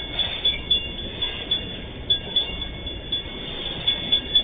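Freight train of loaded open-top wagons rolling steadily past, its wheels clacking sharply over the rail joints several times a second.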